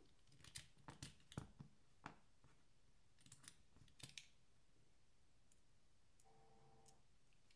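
Faint, sharp clicks and taps of small metal folding-knife parts being handled and fitted together, scattered over the first four seconds, as the knife's backspacer and pins are set during reassembly.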